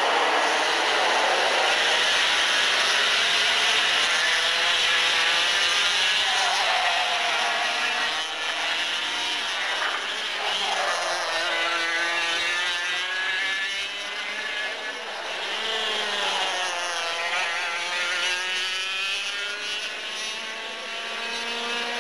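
A pack of two-stroke Parilla racing kart engines running at high revs in a dense, steady buzz. From about eight seconds in, single engines stand out, their pitch climbing and dropping as karts accelerate and back off through the corners.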